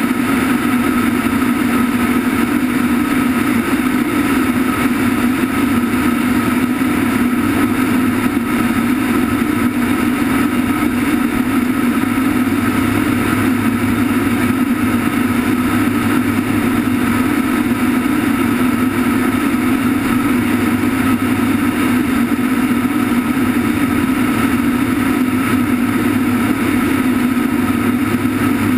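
Cargo aircraft in flight with its rear ramp open: steady engine drone mixed with the rush of air past the open ramp, and a thin steady whine on top, unchanging throughout.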